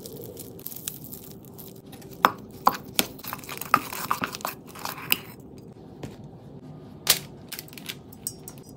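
A utensil mixing and mashing garlic butter in a stainless steel bowl: several sharp metallic clinks against the bowl, with soft scraping and squishing in between.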